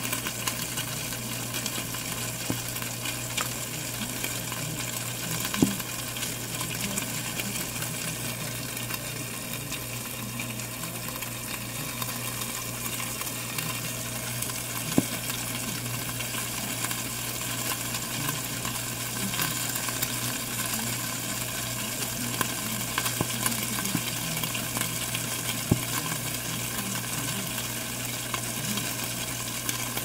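Cheese frying in a pan inside a toaster oven: a steady sizzling hiss with a few sharp pops, over a steady low hum.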